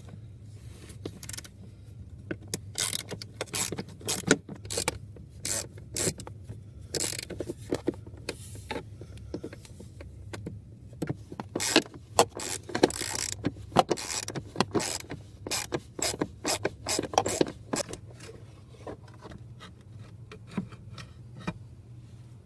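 Hand socket ratchet clicking in quick runs as the 5/16 bolts holding a blower motor are backed out, mixed with light knocks and scrapes. The clicking thins out over the last few seconds.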